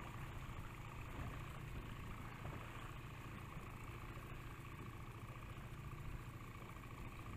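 Small boat's outboard motor running steadily, a constant hum with a faint thin whine above it.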